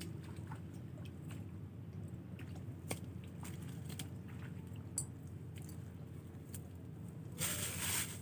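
A plastic bag of bait rustled and handled for under a second near the end, the loudest sound here, over faint scattered clicks and a low steady background rumble.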